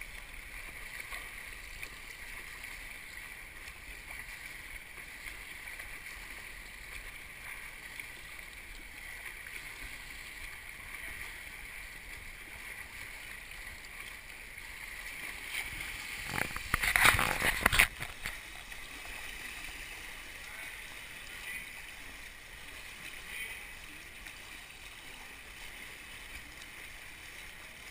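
Steady sloshing and lapping of pool water at the waterline, with a loud burst of splashing for about two seconds a little past halfway as a front-crawl swimmer's strokes and kick pass close by.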